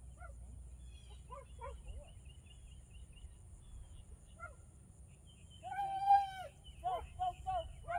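Small birds chirping, then a loud, drawn-out high animal call about six seconds in, followed by a quick string of four or five short high calls.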